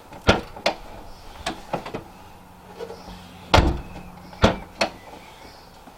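Vauxhall Insignia boot lid and its lock being worked with the newly fitted release switch: a series of sharp clicks and knocks, with a heavy thump about three and a half seconds in.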